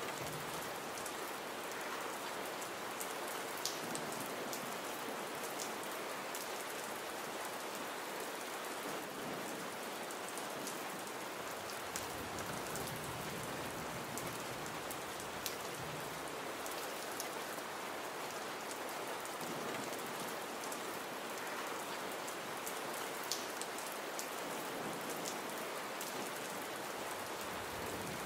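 Gentle rain falling steadily: an even hiss of rain on a surface, with a few louder single drop ticks here and there.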